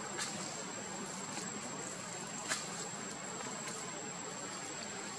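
Quiet outdoor background: a steady hiss with a thin, high, unwavering tone, broken by a few soft clicks, the sharpest about two and a half seconds in.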